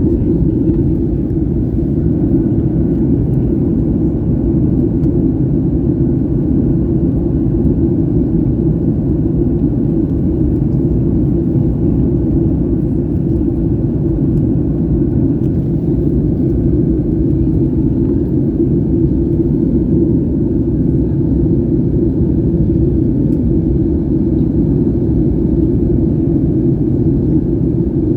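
Steady cabin noise of a Boeing 737 MAX 8 in flight: the low, even rumble of its CFM LEAP-1B engines and airflow past the fuselage, heard from a rear seat.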